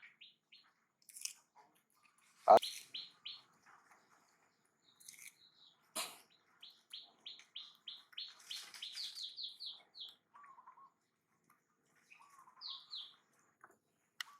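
Birds chirping, with a fast run of short, even chirps at about three to four a second through the middle. A single loud, sharp sound comes near the start.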